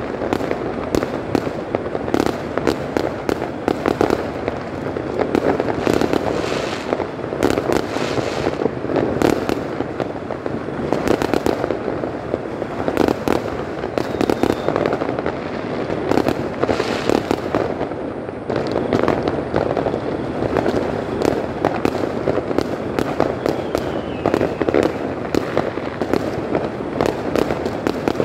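Aerial fireworks going off in quick succession: a dense, irregular run of bangs and crackles over a continuous rumble.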